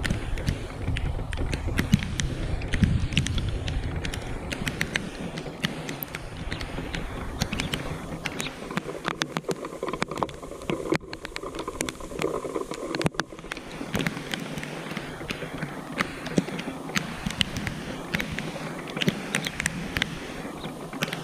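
Rain falling, with many sharp drops tapping close to the microphone. A low rumble runs under it for the first few seconds, then fades.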